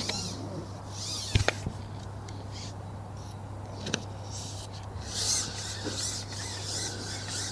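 Outdoor birds calling in high, wavering calls near the start, about a second in and again from about five seconds on. A few sharp clicks or knocks cut through, two close together about one and a half seconds in and one at about four seconds, over a steady low hum.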